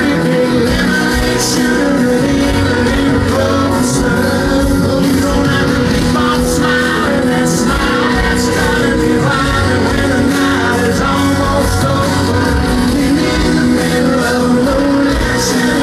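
A live country band playing loud amplified music on electric guitars and drums, heard from the audience, with occasional cymbal crashes.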